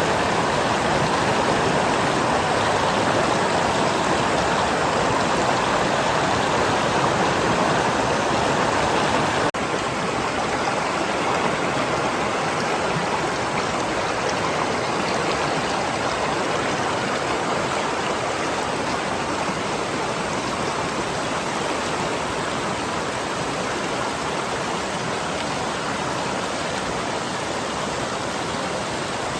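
Mountain valley stream rushing steadily, with a short break about a third of the way in, after which it is slightly quieter.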